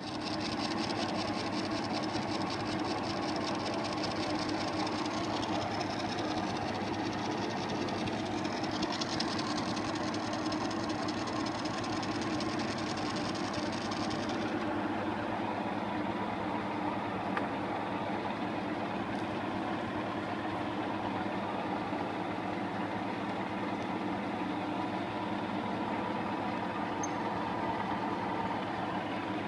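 MS.125 metal lathe running steadily, a constant motor and gear hum with a higher hissing layer that drops away about halfway through.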